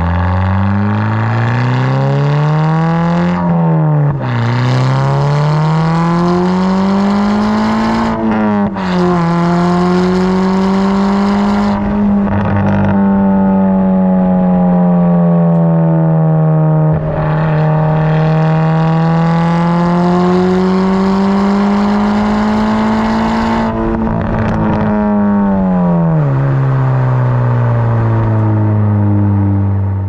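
Volkswagen Mk6 GTI's turbocharged 2.0-litre four-cylinder, heard right at the tailpipe through a 3-inch CTS downpipe and a 2.5-inch Rev9 cat-back with only the resonators. The car accelerates: the revs climb and drop sharply at shifts about 4 and 8 seconds in, then hold high with small rises and dips for a long stretch before falling away near the end. The exhaust note is zingy and high-pitched.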